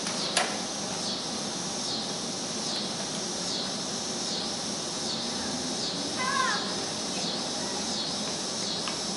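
Steady high buzzing of summer insects, swelling and dipping a little more than once a second. A sharp click comes just after the start, and a short high voice call about six seconds in.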